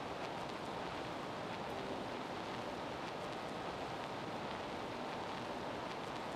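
Steady, even gymnasium background noise during a basketball game, crowd and room sound blurred together, with a few faint sharp ticks.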